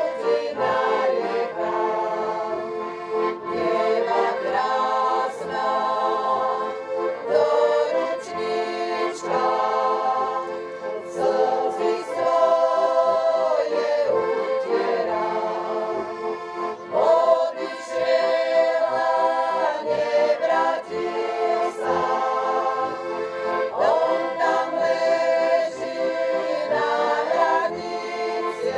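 Live accordion music with group singing, in held chords that change every second or two.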